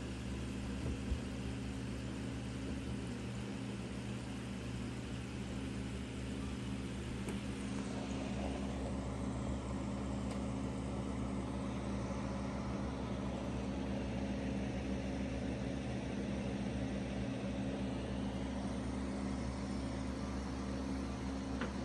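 Steady electric hum of a small aquarium air pump, with water bubbling and fizzing as air streams up from the airline in the tank.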